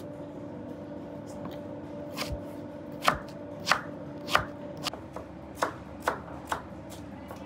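Chef's knife chopping a firm yellow vegetable on a plastic cutting board: separate sharp knocks of the blade through the flesh onto the board. A few light strokes come first, then a run of stronger, fairly even chops a little over half a second apart from about three seconds in.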